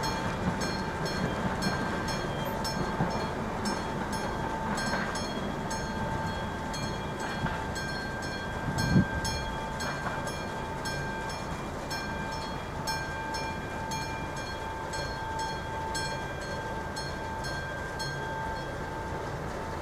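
Electromechanical level-crossing warning bell (AŽD 71 crossing, classic bell) ringing steadily while the crossing is closed, struck about twice a second, over steady background rumble. One louder low thump about nine seconds in.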